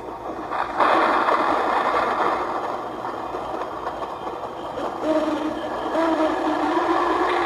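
Spooky sound effect played by a Halloween graveyard sound-effects box: a rushing noise swells in about a second in, and a wavering low tone joins it about five seconds in.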